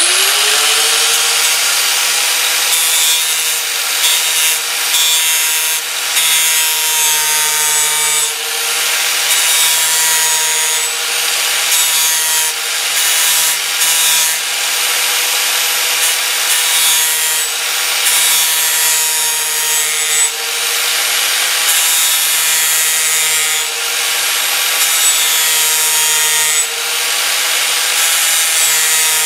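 Electric angle grinder spinning up to speed, then grinding steel clamped in a vise, its motor whine wavering slightly as the load changes. The disc is a homemade one made from two cracked grinder discs, here being tried out on metal.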